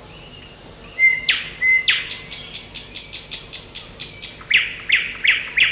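Small birds chirping: short high chirps that quicken into a rapid run of about five a second from about two seconds in, mixed with sharp falling notes.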